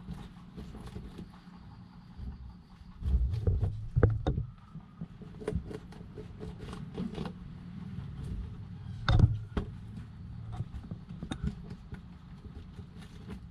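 Scattered short clicks and knocks over a low steady rumble, with a few louder thumps, about three seconds in and again about nine seconds in.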